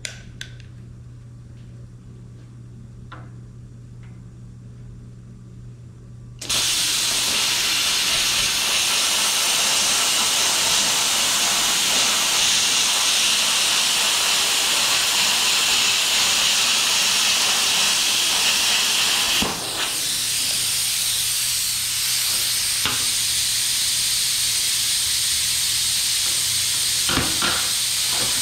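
Hypertherm Powermax 1000 plasma cutter with a Duramax torch: a low machine hum, then about six seconds in the arc fires and a loud steady hiss of the cut through steel plate. About twenty seconds in the arc stops and a thinner hiss of the torch's post-flow cooling air carries on until near the end.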